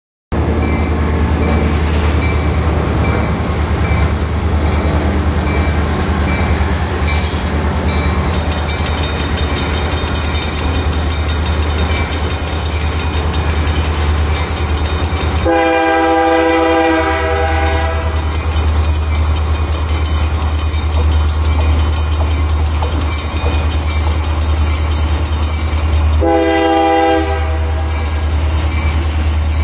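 Union Pacific freight train led by an SD60M diesel locomotive approaching slowly and sounding its multi-note air horn. One long blast comes about halfway through, then a short blast near the end and another just as it ends, over a steady low rumble.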